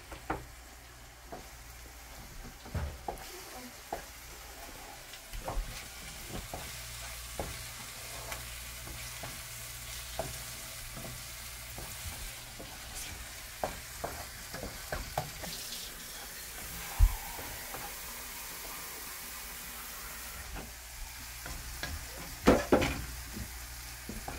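Food sizzling in a hot pot while it is stirred, with a steady frying hiss. The spoon clicks and knocks against the pot now and then, most sharply about two-thirds of the way through and again in a quick cluster near the end.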